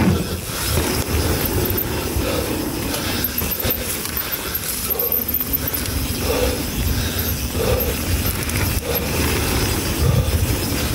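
Mountain bike riding over a muddy trail: a steady rumble and rattle from the tyres and bike, with a few short squeaks along the way.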